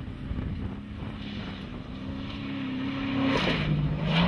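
Engine of an off-road race vehicle drawing closer, getting steadily louder, with a sudden drop in engine pitch about three and a half seconds in.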